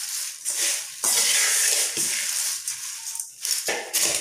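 Dry, crisp fried poha (beaten rice) and cornflakes mixture being tossed with a metal ladle in a metal bowl: the crisp flakes rustle and crunch in repeated sweeps, about one a second.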